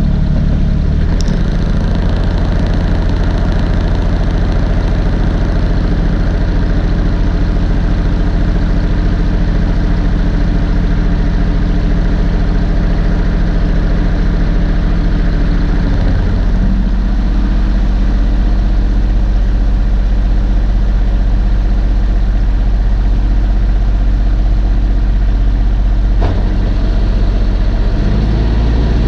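Snowblower engine running steadily and loudly close by. Its note shifts a few times: about a second in, after about sixteen seconds, and twice near the end.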